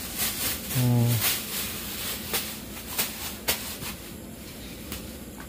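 Plastic bag crinkling and rustling in a run of sharp crackles as bitter gourds are handled and bagged. A brief low voiced sound, like a short hum or grunt, comes about a second in.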